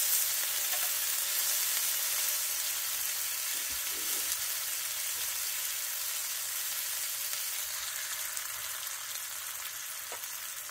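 Lemon slices sizzling in hot butter in a cast-iron skillet, a steady frying hiss that slowly dies down.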